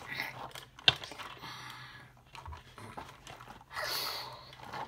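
Breathy mouth noises imitating a tyrannosaurus gulping down its prey, with a sharp click of plastic toys about a second in and a longer breathy hiss near the end.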